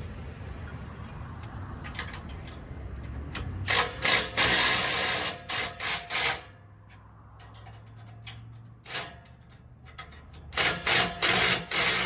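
Handheld power tool run in several short bursts, in two groups about six seconds apart, working on a bumper fastener.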